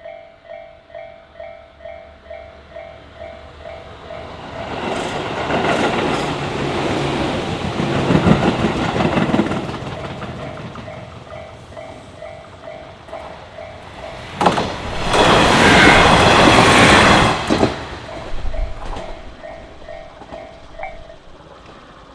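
Japanese level-crossing bell ringing its repeating electronic clang about twice a second while two trains pass over the crossing. One passes a few seconds in, and a louder one runs by close from about 14 to 18 seconds in. The bell stops near the end.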